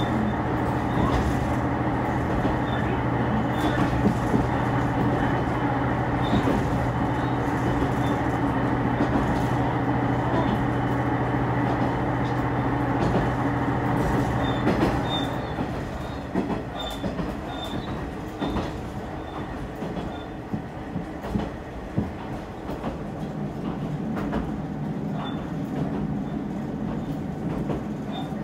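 Tarumi Railway Haimo 330-700 diesel railcar heard from inside the car: the engine drones steadily under power with the running noise of the wheels, then about halfway through the engine note drops away and the car coasts on with wheel rumble and scattered clicks as it nears a station.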